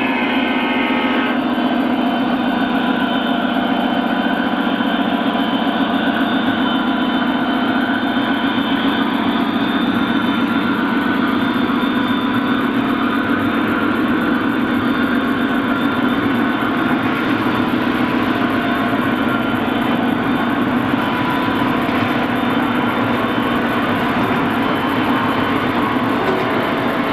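O scale three-rail model train running, heard from on board: a steady, loud rolling rumble and hum of its wheels on the track and its motor.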